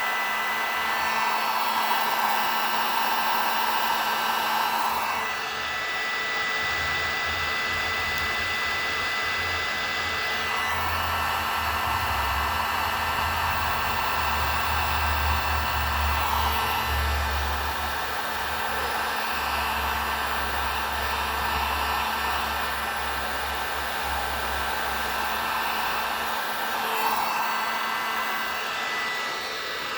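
Electric heat gun running steadily: a rush of blown air with a steady whine, its tone shifting a little now and then as it is moved about, and a low rumble through the middle.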